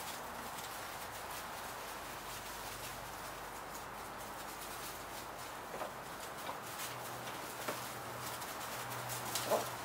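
Briard puppies and an adult dog scampering about on wood shavings: a steady faint rustle with a few light taps in the second half, the loudest near the end.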